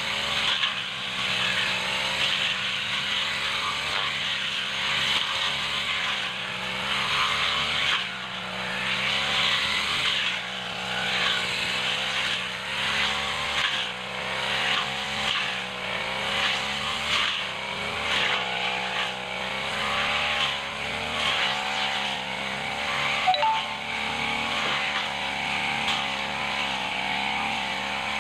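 Backpack brush cutter's small petrol engine running hard while the spinning head cuts through thick grass and brush. The engine note rises and falls with each sweep of the head, about every second or two.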